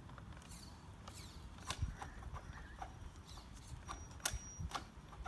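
Axial SCX10 II RC crawler's drivetrain clicking irregularly under throttle while the truck stays stuck. A faint high electric whine comes in near the end. The owner takes it for a gearbox or motor problem.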